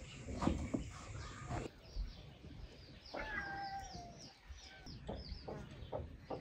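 Farmyard animal sounds: one drawn-out call with a slightly falling pitch about halfway through, among many short high chirps of small birds, with a few scattered knocks.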